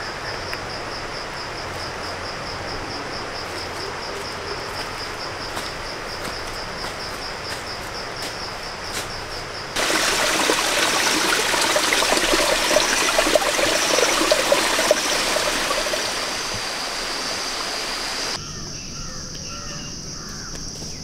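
Forest ambience: an insect trilling in a fast, pulsing high note over a steady hiss. About ten seconds in it gives way to the louder rushing of a stream for several seconds, then the insect drone returns with a few short bird chirps.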